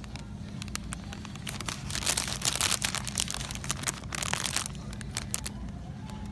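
Crinkly snack bag of seasoned popcorn rustling and crackling as it is handled and turned over, thickest from about two to four and a half seconds in, with a few more crackles after. A low steady hum runs underneath.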